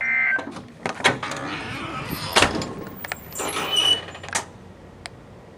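A door being opened and handled: a short high beep, then several sharp clicks and rushes of sliding noise, quieter towards the end.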